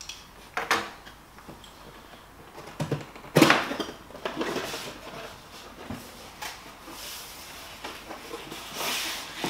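Cardboard retail box being opened by hand: a couple of light knocks near the start, a sharp crack as the lid flap comes free about three and a half seconds in, then cardboard flaps rubbing and scraping.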